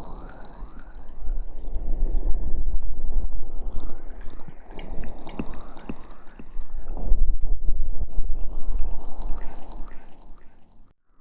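Wet, squishy rubbing of aloe vera gel over a binaural microphone's ears, swelling and fading in slow waves with a deep rumble. It cuts off abruptly just before the end.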